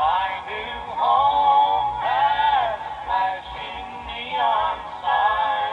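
A country song with a male singer playing from a cassette through the Sanyo M2420 radio-cassette's own speaker, thin with little treble. The deck is running on a freshly fitted replacement drive belt, put in to cure the heavy wow that the temporary rubber band gave.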